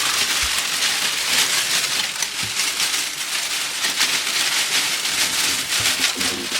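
Foley rustling of a bundle of grass being shaken and brushed without a break, the swishing, crackling sound of a body pushing through tall cogon grass while running, with a few soft low knocks.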